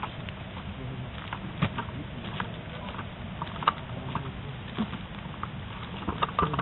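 Footsteps on a dirt track and the rattle of carried gear and an airsoft gun: irregular light clicks and knocks, about one or two a second, over a steady hiss.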